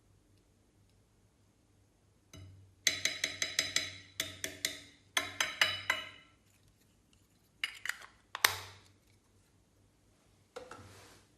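Runs of sharp clinks with a bright ring: hard objects knocking against a hard container, about five a second, in several bursts starting about two seconds in. One loud single clink comes past the middle, and a softer rustling sound near the end.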